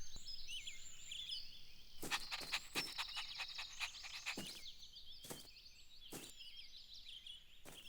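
Cartoon outdoor ambience of small birds chirping, with a scattering of short sharp taps, most of them in the second quarter.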